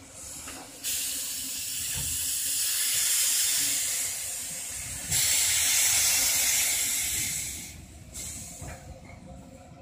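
Small steam locomotive No. 1919 hissing steam in long bursts as it moves slowly. One burst starts sharply about a second in and another about five seconds in, and the hiss dies down near the end.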